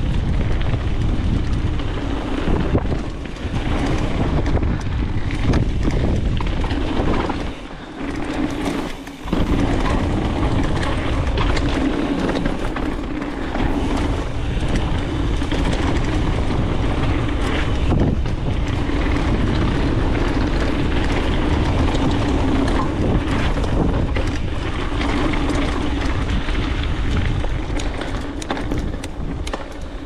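Specialized Stumpjumper mountain bike ridden fast down a dirt trail: wind buffeting the helmet camera's microphone, tyres rumbling over the ground and the bike rattling and clattering, with a steady hum at times. The noise drops briefly about eight seconds in.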